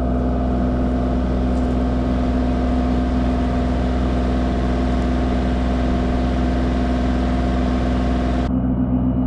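Diesel engine of a skid steer or similar heavy machine running steadily at a constant speed. A hiss in the upper range cuts off suddenly near the end while the engine keeps running.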